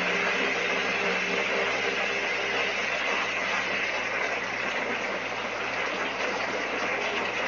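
Steady outdoor night background from a nest-cam microphone: an even hiss with a constant low hum underneath, and a faint engine-like drone that fades out a few seconds in.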